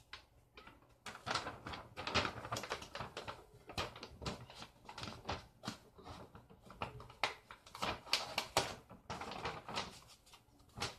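Rapid, irregular clicks and taps, many to the second, like typing.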